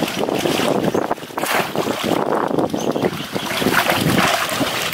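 Water sloshing and splashing as a man wades through knee-deep water, lifting and plunging a bamboo plunge basket.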